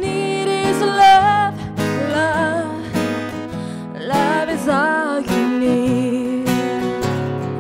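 Background song with strummed acoustic guitar and a singing voice carrying a wavering melody.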